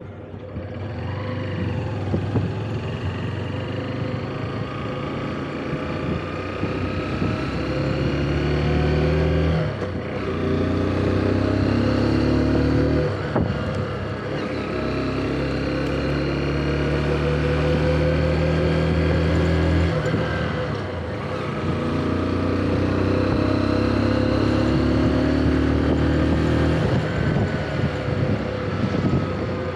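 Motorcycle engine under way, pulling up in pitch through the gears with a sharp drop at each of three shifts.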